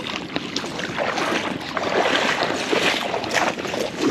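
A small hooked trout thrashing and splashing at the water's surface as it is reeled in close, a busy crackling splash that peaks in the middle.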